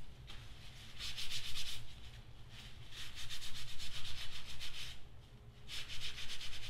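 A shop towel rubbed briskly over the housing and neck of a Snap-on 14.4 V electric ratchet, wiping it clean. There are three spells of quick rubbing strokes: about a second in, from about three to five seconds, and again near the end.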